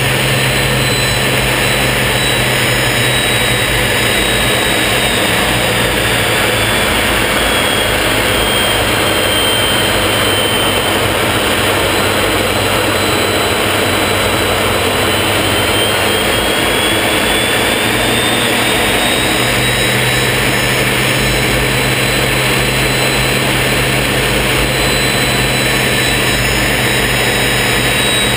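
Folland Gnat's Bristol Siddeley Orpheus turbojet and rushing airflow heard inside the cockpit in flight: a steady loud roar with a high whine that sinks in pitch through the middle and climbs back again.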